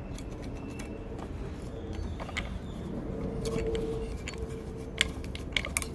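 Small metallic clicks and ticks of valve keepers and the valve spring compressor being handled as the keepers are fitted onto the valve stem, with a few sharper clicks near the end, over a low steady hum.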